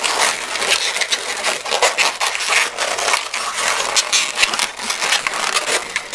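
Inflated 260Q latex modelling balloon being twisted and worked in the hands: the rubber rubs and creaks against itself in a continuous run of quick, crackly strokes.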